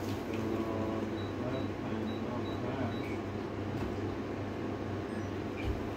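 Short electronic keypad beeps, about six in quick succession over two seconds, from keys pressed on a handheld card payment terminal, over a steady low hum.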